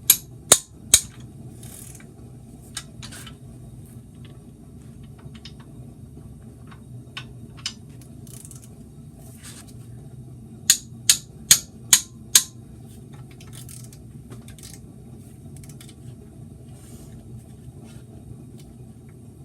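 Socket ratchet wrench clicking in sharp, evenly spaced strokes, three loud clicks at the start and five more around the middle, with fainter clicks between, over a steady low hum; the ratchet is working the 15mm caliper bracket bolts.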